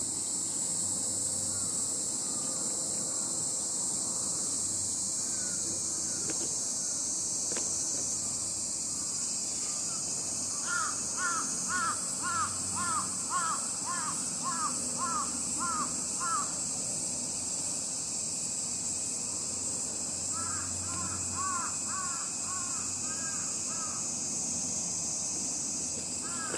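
A crow cawing in quick series of repeated caws, about two a second: a long run of about a dozen near the middle, then a shorter run later. A steady high hiss lies beneath.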